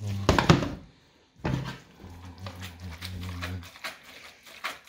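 Silicone spatula stirring and scraping sticky spaghetti around a coated frying pan, with the pan knocking on the hob: a loud burst of scraping and clatter at the start, another knock about one and a half seconds in, then lighter clicks as the pasta is worked and tossed.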